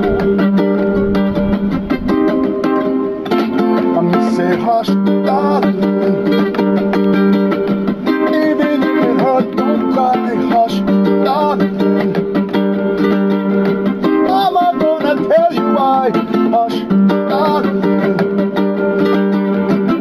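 Ukulele strummed in steady chords, with a voice singing a melody over it from about five seconds in.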